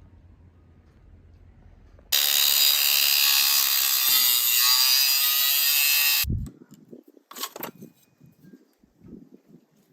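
A power tool cutting, starting abruptly about two seconds in and running loud and steady for about four seconds before stopping sharply, followed by a few light knocks and handling clicks.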